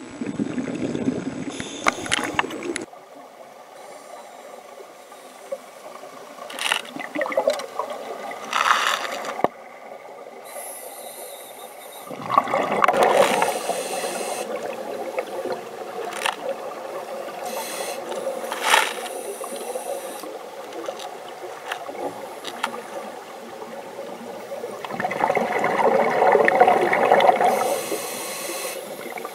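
Underwater ambience around scuba divers: regulator exhalations send out gurgling bubble bursts, with a long one around the middle and another near the end, over a steady hiss with scattered clicks.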